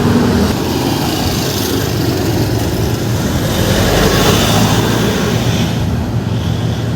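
Steady road traffic noise: a continuous rush of passing vehicles over a low engine hum.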